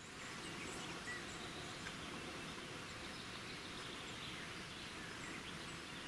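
Steady outdoor field ambience, an even hiss with a faint short chirp about a second in. No call from the fox itself is heard.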